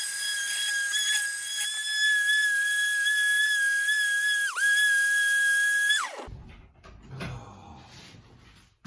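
A small power tool's motor spinning up to a high, steady whine, dipping in pitch for a moment as if briefly loaded, then winding down and stopping about six seconds in.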